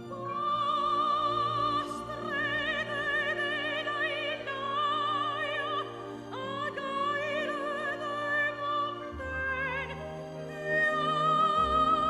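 Operatic singing over orchestral background music: long held notes with a wide vibrato, with the low accompaniment shifting about nine seconds in.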